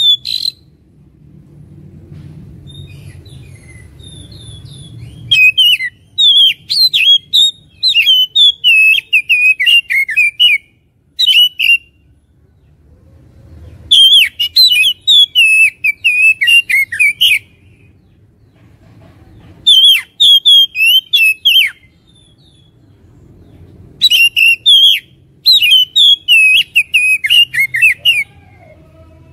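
Oriental magpie-robin (kacer) singing in loud, rapid bouts of sweeping whistles and chattering notes, each bout lasting a few seconds with short pauses between them. It is a heated, combative song used as a pancingan to provoke other magpie-robins into fighting form.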